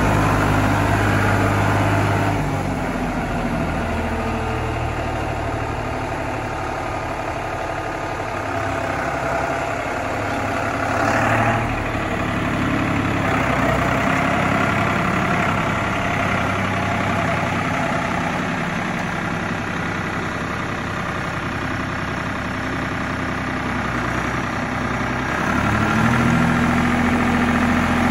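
New Holland TN75DA tractor's four-cylinder diesel engine running as the tractor is driven, settling to a lower speed a couple of seconds in and revving up again near the end.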